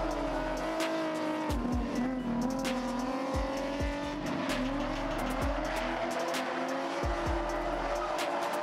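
Two Nissan 350Z drift cars sliding in tandem, their V6 engines revving high with tyres squealing. The engine pitch dips about two seconds in and climbs again, over music with a steady drumbeat.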